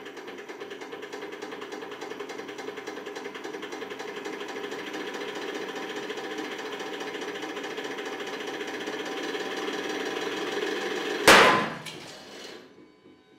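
Hydraulic press running steadily and slowly getting louder as it pulls a steel connecting rod in tension. About eleven seconds in there is a sharp, loud bang, with a smaller crack just after, as the rod's big end gives way at about 8,640 kg. The press then dies away to silence.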